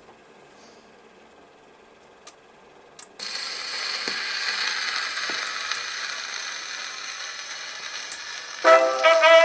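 A few light clicks as the Victrola's tone arm is handled, then the needle drops into the groove of a spinning 78 rpm record about three seconds in and loud record surface hiss and crackle from the lead-in runs. Near the end the jazz band's brass starts playing through the phonograph.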